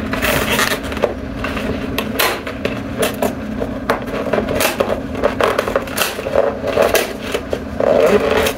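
Cardboard door of a Target 12 Days of Beauty advent calendar being picked at and pried open with the fingers: repeated scraping, crackling and small clicks of paperboard, over a steady low hum.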